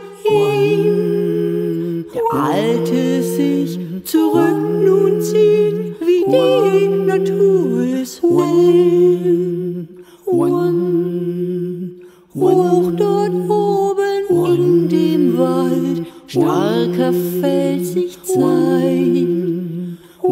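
A cappella vocal music: layered singing over a low held tone, in phrases about two seconds long with short breaths between them.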